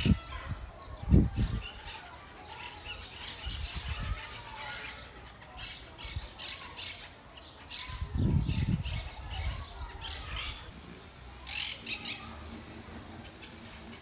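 Monk parakeets squawking: a scatter of short, harsh calls, with a louder burst of several squawks near the end. A couple of low rumbles, about a second in and again around eight seconds in, lie underneath.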